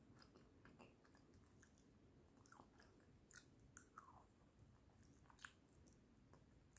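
Faint chewing of baked pork rib meat, with small mouth clicks scattered through, a few louder ones in the middle and about five and a half seconds in.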